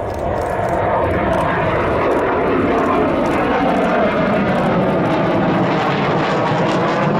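Saab 37 Viggen jet fighter flying a display pass overhead, its Volvo RM8 turbofan engine a loud, steady rumble. The sound swells slightly about a third of a second in and then holds.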